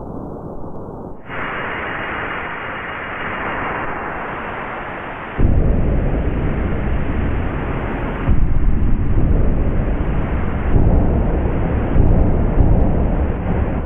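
E-mu Proteus/1 XR synth module playing a noise-based sound-effect patch, like wind or a jet. A muffled hiss opens out brighter about a second in, and deep rumbling noise joins about five and a half seconds in, swelling in steps several times after that.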